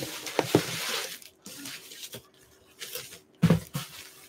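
Bubble wrap and packing material crinkling and rustling as a wrapped cup is pulled out of a cardboard box: dense for about the first second, then scattered light crackles, with a couple of dull thumps a little past three seconds as the package is handled.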